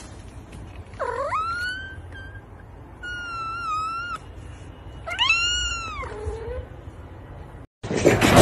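Long-haired white cat meowing three times, each call about a second long: the first rises and holds, the second holds level, the third rises and falls. Near the end a loud burst of noise begins.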